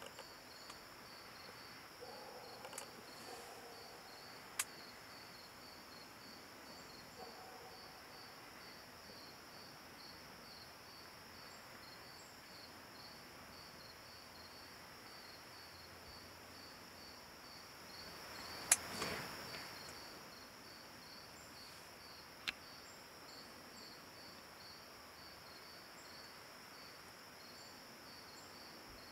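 Insects chirping in the undergrowth, a steady high pulsing at about two to three pulses a second, with a few sharp clicks and one brief louder noise about nineteen seconds in.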